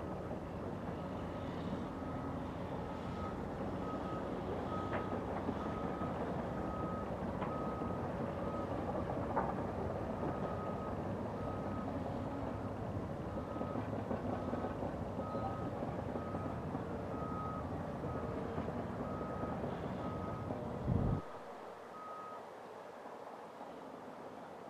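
A mining haul truck's reversing alarm beeps steadily at one pitch as the truck backs up to an excavator to be loaded, over the steady running of heavy diesel excavators and trucks. About 21 s in there is a brief low thump and the low rumble drops away; the beeping stops soon after.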